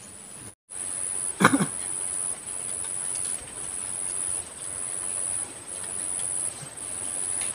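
An insect trilling in a high, steady buzz, broken into pulses about a second long with short gaps between them. A brief loud thump about a second and a half in.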